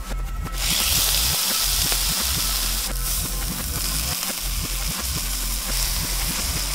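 Steak sizzling in a hot cast-iron pan: a steady frying hiss that starts suddenly about half a second in. Underneath runs reversed electronic music with a steady low beat.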